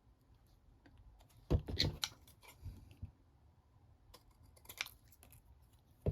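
A few short clusters of light clicks and taps as paper and a small cutting tool are handled on a craft table, with quiet stretches between.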